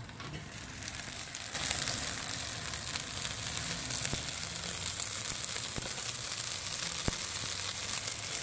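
Beef rib roast sizzling on a rotisserie spit in a charcoal kettle grill, a steady hiss that grows louder about a second and a half in as the lid comes off. A few faint crackles sound through it.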